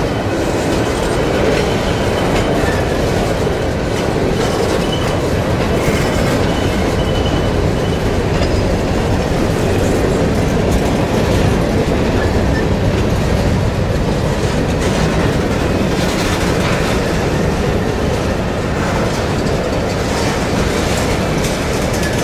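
Covered hopper cars of a freight grain train rolling past at close range: a steady rumble of steel wheels on rail with wheel clatter.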